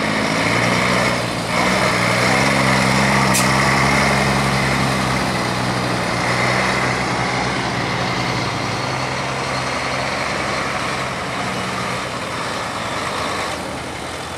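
LIAZ truck's diesel engine running as the truck drives over rough dirt ground: a steady low engine note, loudest in the first few seconds and easing off gradually.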